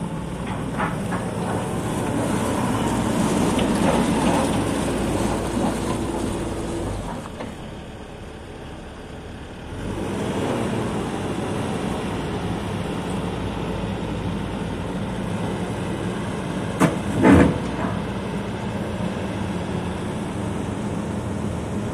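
Hitachi ZX140W-5B wheeled excavator's diesel engine running as the machine drives and works. The engine gets louder for a few seconds early on and drops away for a couple of seconds in the middle. Two short sharp sounds come about half a second apart, a little after the middle; they are the loudest moments.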